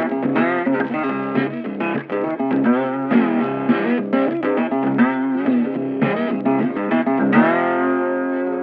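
Background music: a guitar tune of quick notes, some sliding in pitch, settling about seven seconds in on one long held chord that slowly fades.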